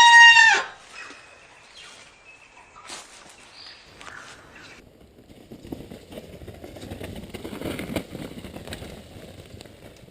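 A loud, steady horn blast with many overtones cuts off suddenly about half a second in. Faint scattered outdoor noise follows.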